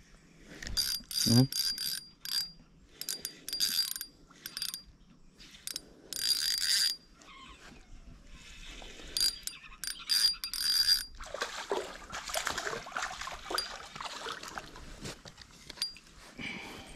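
Spinning reel cranked in short bursts, its gears whirring with a thin high whine as line is reeled in. After about eleven seconds, irregular rustling takes over.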